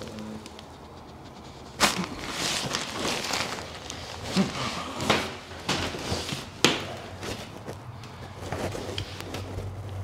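Chiropractic adjustment: a few sharp cracks, the loudest about two seconds in and another sharp one near seven seconds, amid rustling of clothing and shifting on the padded table.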